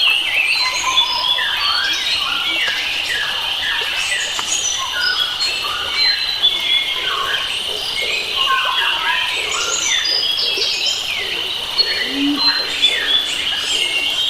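A dense chorus of wild forest birds, many birds calling and singing at once in short whistled, chirping notes, over a steady high-pitched drone. A few low calls come in near the end.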